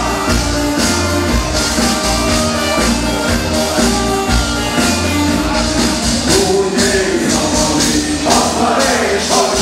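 A live band playing a rock song with singing. Drums with an even, driving cymbal beat and guitar carry it throughout.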